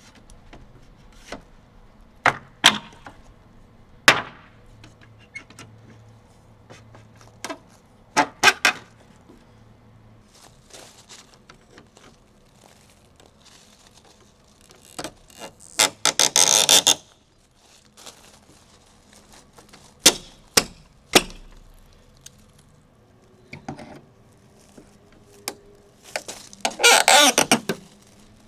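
Hand-tool work taking apart a wooden fence gate: sharp knocks and cracks as a pry bar works a nailed picket loose, then two longer bursts of rapid metallic rattling from work on the gate's steel hinge hardware.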